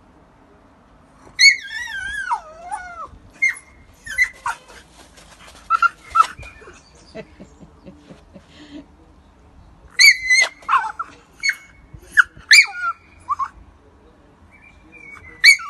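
French Bulldog whining and yelping in high-pitched cries: one long whine falling in pitch about a second and a half in, then short whines and yips in bursts, the densest cluster about ten seconds in. It is crying at being left behind while its friend walks away.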